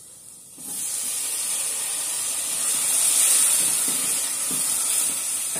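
Chopped tomato hitting hot butter and browned onion in a stainless steel pot: a loud, steady sizzle that starts suddenly about half a second in and swells slightly around the middle as the moisture boils off.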